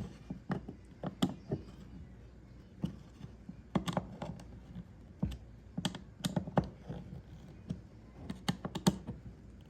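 Scattered light clicks and knocks, a dozen or so at irregular intervals, as parts and tools are handled on a workbench.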